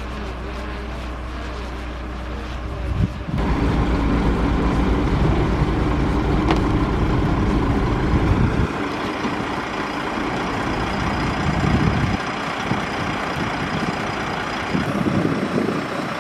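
Heavy truck's diesel engine running to power its truck-mounted hydraulic crane as a shipping container is lifted and lowered. The engine gets louder about three seconds in, and its note changes again near nine and twelve seconds in as the load on the crane changes.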